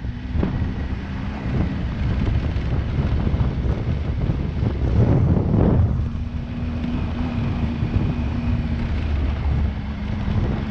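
Motorcycle engine running while riding over a rough gravel track, heard from a helmet camera with wind noise on the microphone and tyres crunching on loose stones. There is a louder patch of rumbling about five seconds in.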